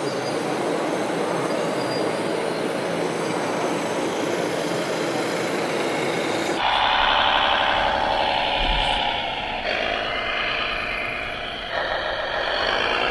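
A dense, grinding mechanical noise with a faint high squeal as a radio-controlled model cable excavator works its bucket. About six and a half seconds in, this gives way to the high whine of a radio-controlled New Holland tractor's electric drive motor and gearbox, its pitch rising and falling as the tractor drives through loose dirt.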